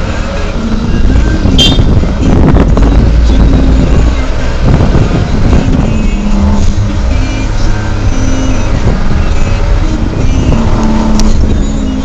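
Mitsubishi Canter light truck's diesel engine running while the truck drives, heard from inside the cab.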